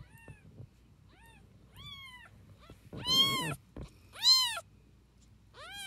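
A newborn kitten mewing repeatedly: short, high-pitched calls that rise and fall in pitch. Three are faint, then three louder ones come about a second apart in the second half.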